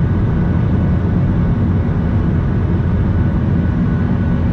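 Airliner engines heard inside the passenger cabin, a steady low-pitched roar as the plane climbs away after an aborted landing (go-around).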